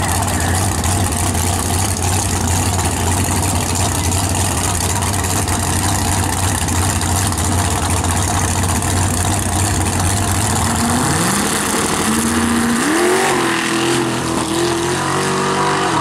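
Nitrous-equipped Ford Thunderbird drag car's engine running loud and steady at the starting line, then launching at about eleven seconds in, its pitch climbing in steps as it accelerates away down the strip.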